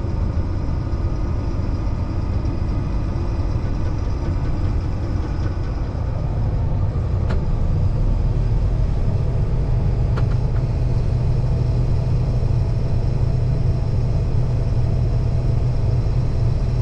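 Case IH 2388 combine's diesel engine running with a steady low drone, which grows a little stronger about halfway through.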